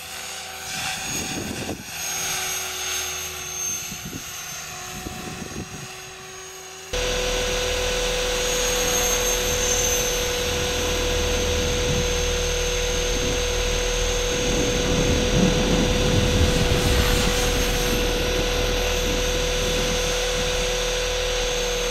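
Electric radio-controlled model aircraft buzzing at a distance, its pitch wavering as it flies. About seven seconds in the sound cuts abruptly to the aircraft's own on-board sound: a loud, steady motor whine under heavy wind rush as it flies low and fast.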